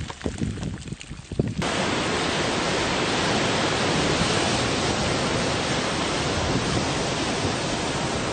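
Steady rushing hiss of surf and steam where lava pours off sea cliffs into the ocean, starting abruptly about one and a half seconds in. Before it comes uneven low rumbling with a few sharp clicks.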